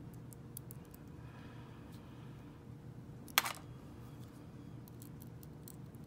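Steel lock pick scraping and ticking against the pins in the cylinder of an old brass Segal padlock held under tension: scattered faint clicks, with one sharper click about three and a half seconds in.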